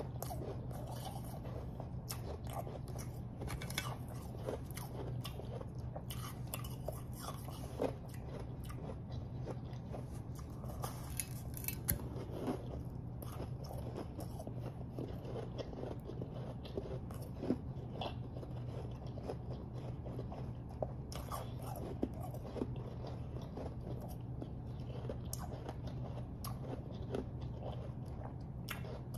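Close-miked crunching and chewing of refrozen powdery snow ice, with irregular crisp crunches and crackles throughout.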